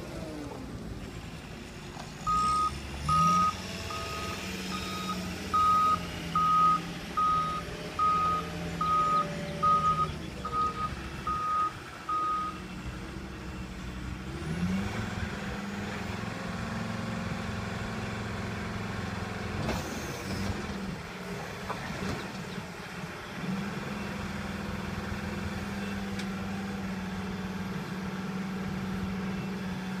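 John Deere 304J compact wheel loader's diesel engine running as it manoeuvres, its reverse alarm beeping about a dozen times, a little faster than once a second, through the first half. The engine revs up briefly a few times, and a few knocks come about two-thirds of the way through.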